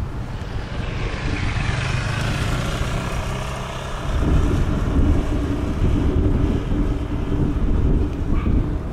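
A motor vehicle engine running close by, getting louder and lower about four seconds in.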